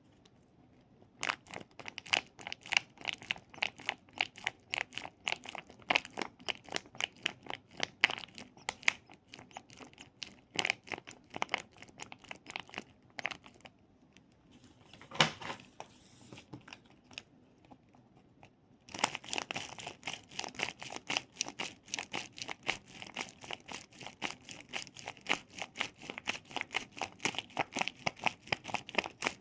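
Rapid, irregular crinkling and clicking of toys being squeezed and handled close to the microphone. It starts about a second in, thins out in the middle with one louder crackle, then picks up densely again.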